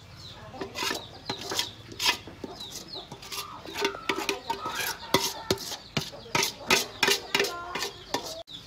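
Chickens clucking in short, repeated calls over a run of sharp clicks and scrapes. Near the end, a steel bowl is scraped out.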